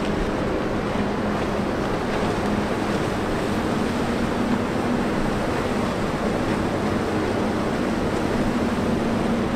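Harbour tug's diesel engines running steadily while it pulls on a taut towline at a container ship's bow: a constant low hum that drifts slightly in pitch, over a steady rushing noise.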